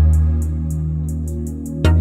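Background music: a soft ambient piece with a deep sustained bass, a steady ticking beat, and a new chord struck near the end.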